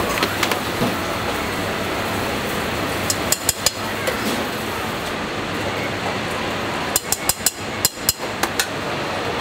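A metal spoon clinking against a stainless steel bowl and serving tray as toppings are scooped, in quick runs of sharp taps: a few just after three seconds in and a longer run from about seven seconds, over steady kitchen background noise.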